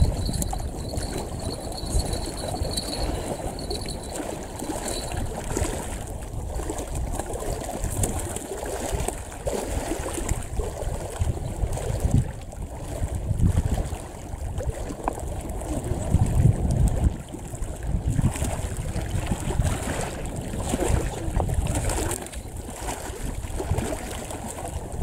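Small waves lapping and trickling against a rocky lakeshore, with gusts of wind rumbling on the microphone that swell several times.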